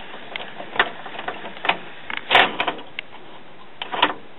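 Irregular plastic clicks and knocks from a Denon CD player's tray mechanism as the disc tray is pushed and sticks instead of closing, the loudest knock about halfway through. The tray is hanging up, its loading gear out of time.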